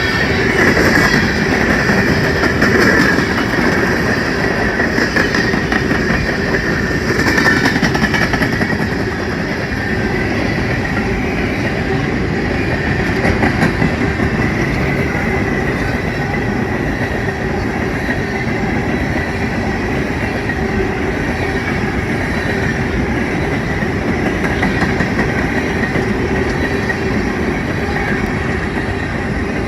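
Empty BNSF coal train rolling past, its steel wheels clacking over the rail joints in a steady, continuous run, a little louder in the first eight seconds.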